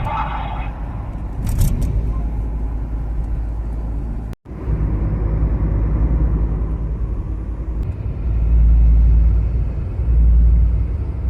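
Street traffic with a steady low rumble. The rumble swells twice near the end and is briefly cut off about four and a half seconds in.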